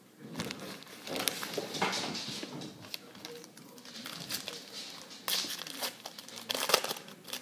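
Plastic wrapper of a football trading card pack crinkling and tearing as it is pulled open by hand, in a series of irregular crackly bursts.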